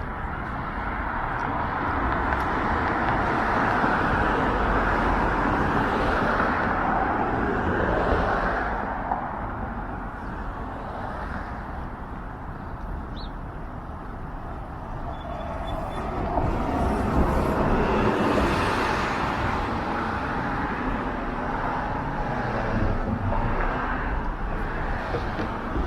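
City street traffic: cars passing on the road, swelling twice as vehicles go by, over a steady background hum.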